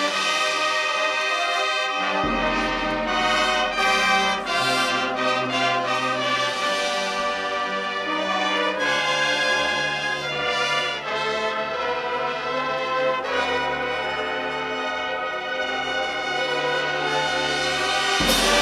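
High school marching band playing, its brass holding loud sustained chords. A low bass note comes in about two seconds in, and the harmony shifts near nine seconds and again just before the end.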